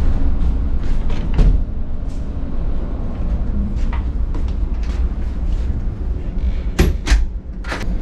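Cabin doors being handled: a few light latch and handle clicks, then three sharper knocks of a door opening or closing near the end. Under it runs a constant low hum of the cargo ship's machinery.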